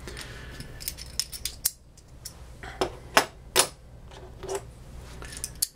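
Light clicks and clinks of small anodised titanium knife scales being handled. A few scattered taps, with several close together about three seconds in.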